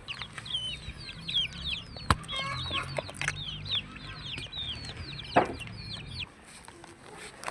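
Free-range chickens calling: many short, high-pitched calls overlapping, which stop about six seconds in. Two sharp knocks, about two and five seconds in.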